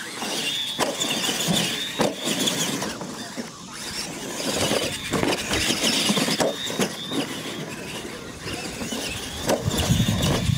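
Two radio-controlled monster trucks racing side by side over dirt, starting suddenly, their motors and gears giving a steady high-pitched whine, with sharp knocks and rattles every second or two as the trucks hit the ramps and bumps.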